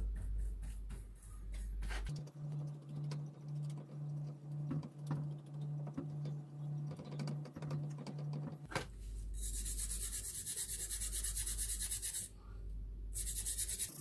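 Bristle paintbrush scrubbing over wet, rusty steel wrenches in short, repeated strokes.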